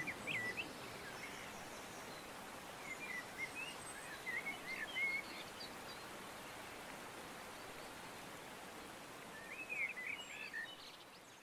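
Outdoor ambience: a steady background hiss with scattered short bird chirps, heard in small clusters near the start, in the middle, and again about ten seconds in. The sound fades out near the end.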